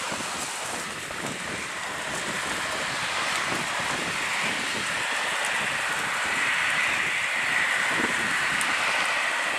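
Robinson R44 helicopter hovering close to the ground, its rotor and engine making a steady rushing noise that grows a little louder, with a high whine that comes up over the second half.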